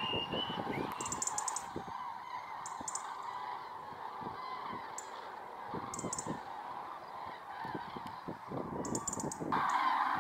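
A flock of common cranes calls without a break in a dense honking chorus, with several short bursts of a European robin's rapid ticking alarm call over it. The crane chorus gets louder near the end.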